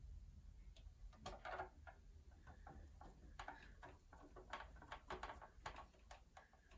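Faint, irregular clicks and small scrapes of a hand screwdriver turning a screw into a turntable's casing, starting about a second in.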